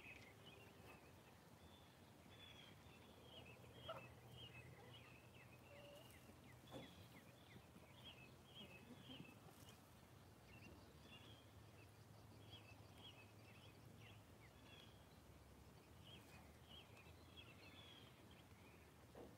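Faint outdoor ambience with quiet, high bird chirps and calls repeating throughout, and a couple of soft clicks.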